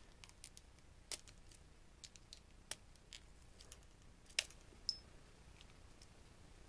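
Plastic housing of a flip phone clicking and ticking as its snap tabs are pried apart with a flathead screwdriver: faint, irregular clicks with a few sharper ones spread through.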